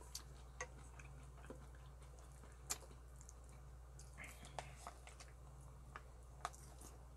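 Quiet eating sounds: scattered light clicks of wooden chopsticks against a plastic rice container and a steel pot, with soft chewing, over a low steady hum.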